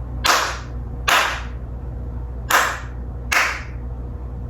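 Stormtrooper animatronic playing blaster-fire sound effects through its speaker: four shots in two quick pairs, each a sharp crack that fades within half a second.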